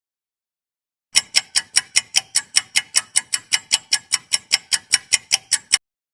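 Ticking-clock sound effect: a fast, even run of sharp ticks, about five a second, starting about a second in and cutting off abruptly near the end, with dead silence around it.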